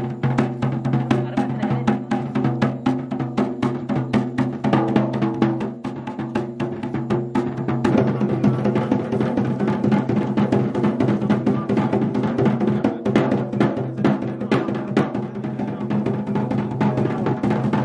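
Double-headed barrel drum played in a fast, continuous run of strokes, with a steady low drone under the beats.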